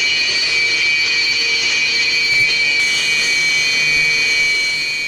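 Su-30MK2 fighter's twin jet engines running with a steady high-pitched whine over a rushing noise, easing off near the end.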